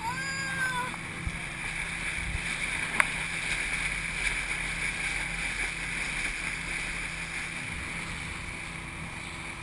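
Outboard motor of a speedboat running steadily at speed, with water rushing off the hull and wake and wind on the microphone. A single sharp click about three seconds in.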